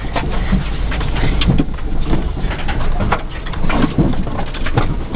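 Cabin noise of a 1997 Geo Metro three-cylinder hatchback driving over a rough woodland trail: a steady low rumble with frequent knocks and rattles as the car bounces.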